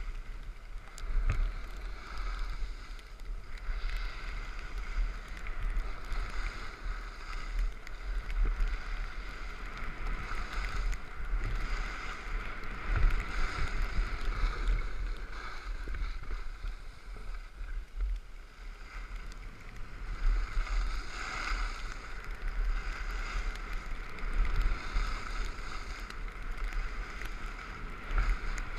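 Skis scraping and hissing over packed snow on a downhill run, swelling and fading as the skier turns, with a steady low rumble of wind buffeting the microphone.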